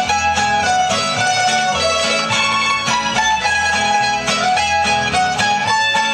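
Traditional folk dance music played on plucked string instruments: a bright, fast melody over a steady beat and bass line.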